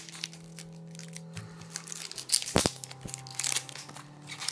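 Plastic film and tape wrapping of a LiPo battery pack crinkling and tearing as it is peeled open by hand, with one brief knock a little past halfway.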